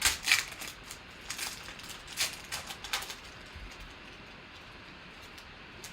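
Trading cards and pack being handled: a few short rustles and clicks over the first three seconds, then only faint room hiss.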